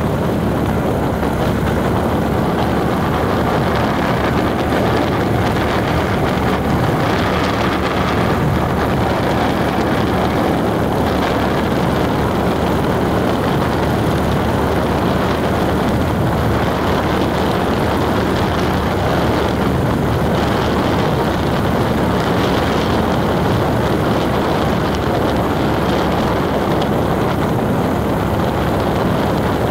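Road vehicle driving at a steady pace: a constant engine hum mixed with tyre and wind noise.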